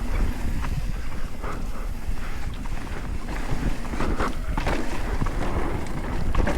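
Wind buffeting the microphone over the low rumble of a mountain bike riding a dirt trail, with a few short knocks and rattles about four to five seconds in.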